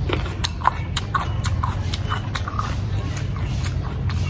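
Close-up crunching and chewing of raw cucumber: a run of irregular crisp crunches as it is bitten and chewed, over a steady low hum.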